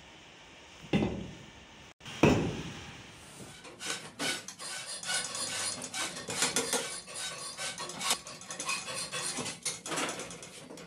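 Two heavy thumps in the first couple of seconds, then a run of quick metallic clicks and clinks as hand tools such as pliers work on the metal parts of a sewing machine head being assembled.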